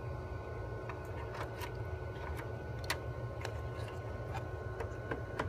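Small plastic clicks and taps as a smart card is slid into an Emerson Unidrive drive and its keypad is clipped back on, one click a little louder about three seconds in, over a steady low hum.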